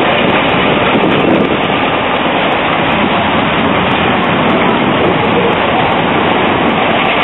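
Steady street traffic noise at a tram junction: trams rolling slowly through the curves and points, and cars driving over the wet road with a hiss of tyres.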